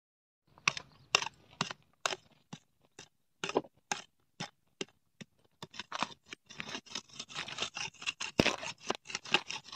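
Hand sickle scraping and cutting through dry grass and soil in short, irregular strokes, sparse at first and coming quicker in the second half.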